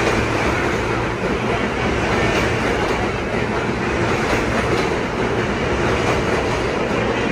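New York City subway train running along the platform track, a loud steady rumble of steel wheels on rail with a few faint clicks.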